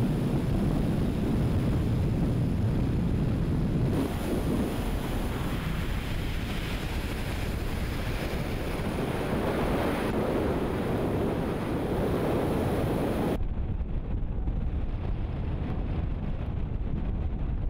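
Wind buffeting the microphone, a steady rough rumbling hiss with no distinct events. The sound changes abruptly about four seconds in and again about thirteen seconds in, where it turns duller and loses its high end.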